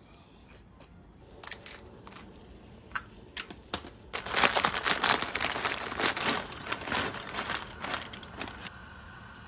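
Plastic food packaging being handled and crinkled: a few separate crackles, then about four seconds of dense crinkling.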